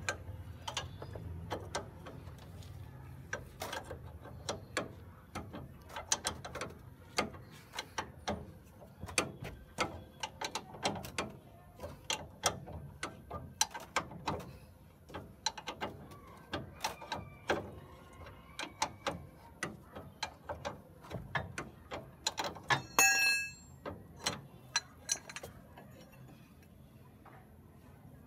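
Ratchet wrench clicking in short, uneven strokes as a bolt is turned, with one louder ringing metallic clink of tools about three quarters of the way through; the clicking stops near the end.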